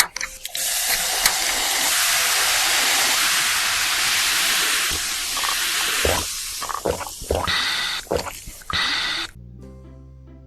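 Loud steady hiss, with a few short sharper sounds in its last few seconds, cutting off abruptly about nine seconds in; soft music follows.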